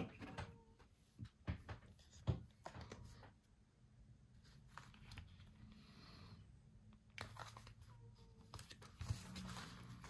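Paper being handled and smoothed down by hand: quiet, scattered rustles and light taps, busiest at the start and again near the end.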